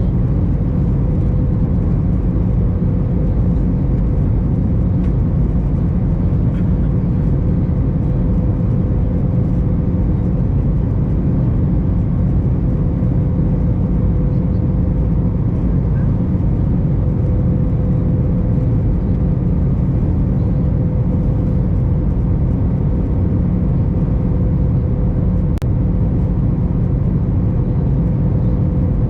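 Airbus A321 cabin noise heard from a window seat: a loud, steady rumble of engines and airflow with a constant hum running through it.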